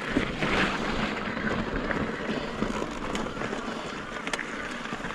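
Mountain bike rolling over a rough trail: steady tyre noise with scattered clicks and rattles from the bike.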